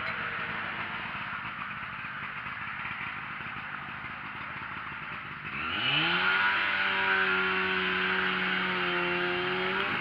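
Chainsaw engine revving up sharply about halfway through and held at high speed for about four seconds, with a brief dip before it cuts off. Before that there is only steady background noise.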